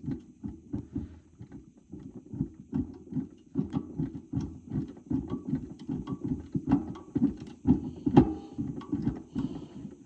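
Rapid, irregular knocking and rattling as needle-nose pliers rock the old relay's metal coil bracket back and forth on the amplifier's circuit board to fatigue its rivet, with a sharper knock about eight seconds in.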